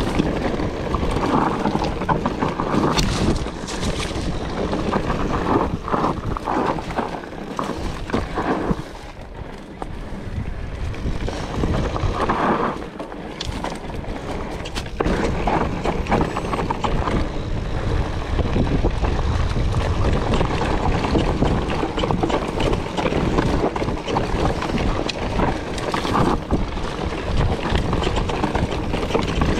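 Specialized Turbo Levo e-mountain bike descending a loose, rocky dirt trail: tyres crunching over gravel and stones and the bike rattling over bumps, with wind rushing over the camera microphone. It eases off for a few seconds about nine seconds in, then picks up again.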